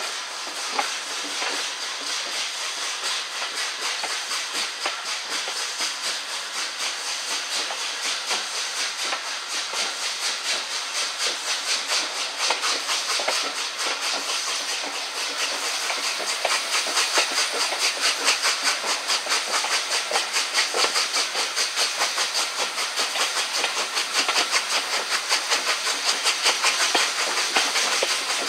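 Steam locomotive Flying Scotsman, an LNER A3 three-cylinder Pacific, working a train, its exhaust beats coming in a quick, even rhythm over a steady hiss, heard from an open carriage window. The beats grow louder and more distinct about halfway through.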